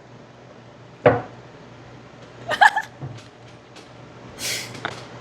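A person's short vocal reactions while tasting food: a sharp exclamation about a second in, a brief strained vocal sound a little later, and a breathy exhale near the end.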